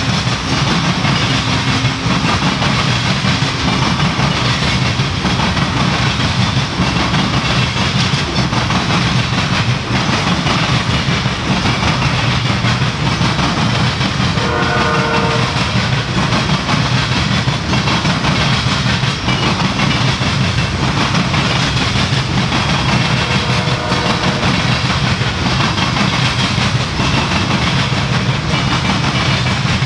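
Coal hopper cars of a freight train rolling past, the steel wheels making a steady heavy rumble and clatter on the rails. About halfway through a brief horn note sounds, with a fainter one later.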